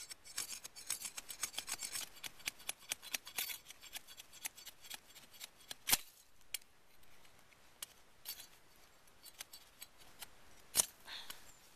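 Fixed-blade knife whittling a thin wooden stick: a quick run of short scraping cuts for the first few seconds, then sparser cuts with a sharp snap about six seconds in and another near the end.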